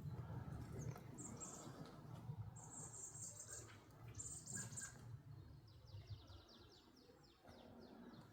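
Small birds chirping: short high chirp phrases in the first five seconds, then a rapid trill of falling notes near the end, over a faint low rumble.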